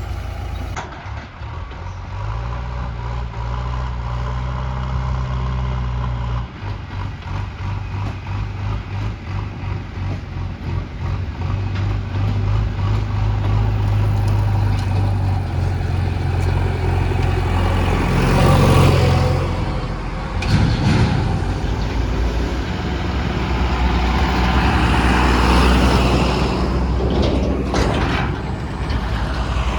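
JCB 3DX backhoe loader's diesel engine working, its pitch stepping up and down every few seconds as the load changes. There are louder stretches of rushing noise a little past halfway and again near the end.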